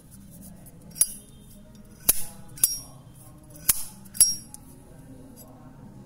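The hinged lid of a 10K gold-filled Zippo lighter being flipped open and snapped shut: five sharp metallic clinks, each with a brief ring. The last four come in two pairs about half a second apart.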